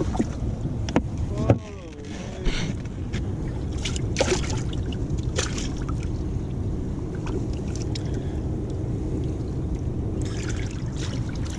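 Bass boat's motor running steadily with a low rumble, with a few short knocks on the boat.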